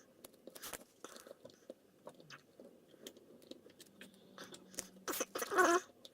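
A lock pick and tension wrench working the pins inside a security-pinned kik cylinder lock: a run of small metallic clicks and scrapes, with a louder scraping rattle about five seconds in.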